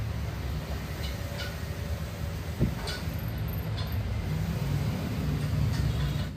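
Steady low hum of workshop machinery, with a few light metallic clicks and one sharper knock about two and a half seconds in as the finned aluminium drive face is handled and turned by hand on the crankshaft's repaired spline.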